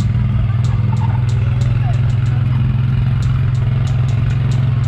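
Steady engine drone of the vehicle towing a string of open cow-painted ride carts, heard from a rider's seat, with irregular clicks and rattles from the carts two or three times a second.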